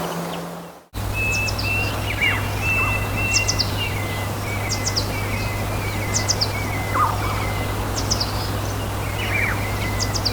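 Forest ambience: birds calling, with quick groups of high chirps every second or so over a lower warbling call, above a steady low river rush. The sound fades out and cuts back in about a second in.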